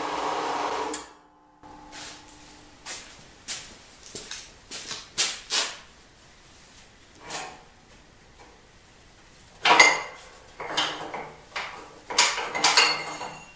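Irregular metallic clanks and knocks from hands working on a horizontal metal-cutting band saw and its steel parts, with the saw not running. The loudest clank comes about ten seconds in, with another run of clanks near the end. The tail of guitar music cuts off in the first second.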